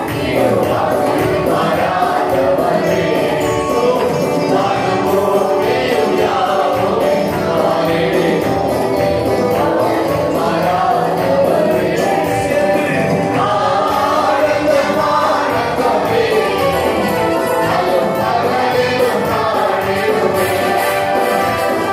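A group of young women singing a Tamil Christian worship song together, with keyboard backing and a steady percussion beat.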